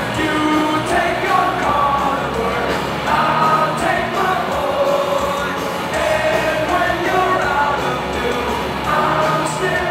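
Live rock band playing with electric guitars, drums and singing, recorded from within the concert audience.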